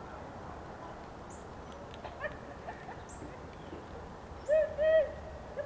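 An animal calling from the woods: two loud, short calls about four and a half seconds in, then a quicker run of shorter calls starting at the very end, over a steady outdoor hiss.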